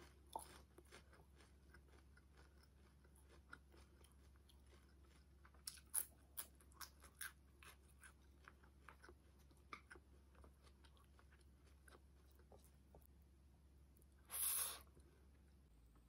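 Faint close-up chewing of crunchy fried lumpia with the mouth closed: scattered soft crunches and wet mouth clicks, a few sharper ones about six seconds in. Near the end comes one short, louder rush of noise.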